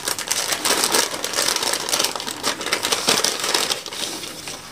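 Paper gift wrapping crinkling and rustling as it is unwrapped by hand, a rapid run of crackles that dies down near the end.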